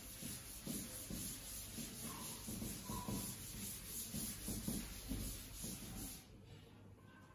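Faint scratching and rubbing of handwriting on a writing surface, stopping about six seconds in.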